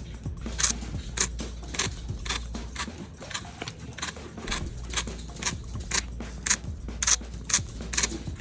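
An iPhone XR's haptic (Taptic) engine rattling in short, sharp buzzes about twice a second, a rattlesnake-like noise. It is the sign of a faulty haptic engine.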